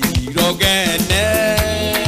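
African gospel band music: a lead voice sings held, wavering notes over a steady drum beat and bass.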